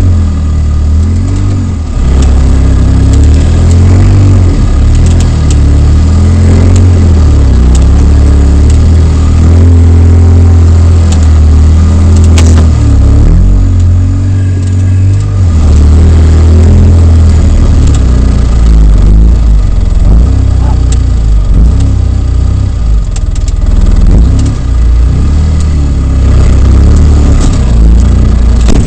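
Polaris RZR side-by-side's engine running loudly, revving up and down as it crawls over rock, with scattered sharp knocks and clatters.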